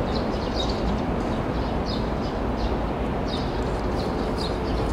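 A bird chirping repeatedly, short high chirps about every half second, over a steady low outdoor rumble.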